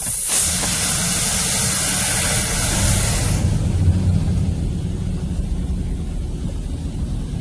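High-pressure water jets of a touchless automatic car wash spraying the car, heard from inside the cabin. A loud hissing spray starts abruptly and lasts about three seconds, then eases into a steady low rumble of water on the body.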